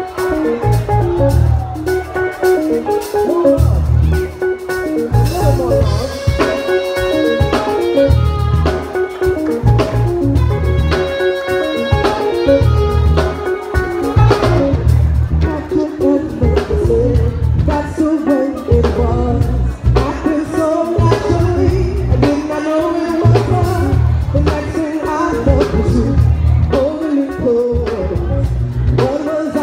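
Live band music with a steady bass and drum beat under sustained keyboard-like chords, and a woman singing.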